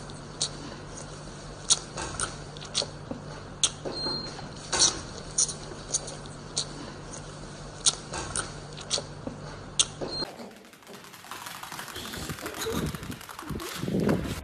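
Baby giant panda suckling at a feeding bottle: irregular sharp wet clicks, about one or two a second, over a low steady hum. About ten seconds in it gives way abruptly to a rougher, noisier sound.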